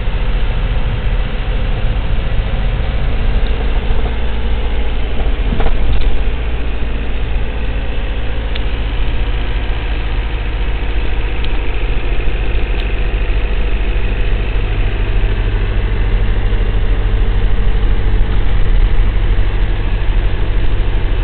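Car engine running steadily with road noise from the tyres, heard from inside the cabin while driving.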